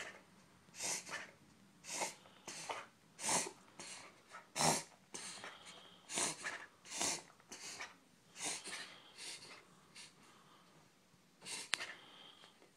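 A puggle's rapid, harsh, noisy breaths during an attack of breathing trouble, about two a second, with a short pause about ten seconds in and a sharp click shortly after.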